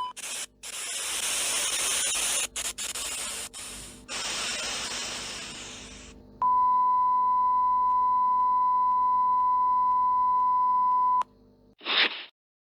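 Static-like hiss that drops out briefly several times and fades away, then a steady high electronic beep tone held for about five seconds that cuts off abruptly, followed by a short burst of noise near the end.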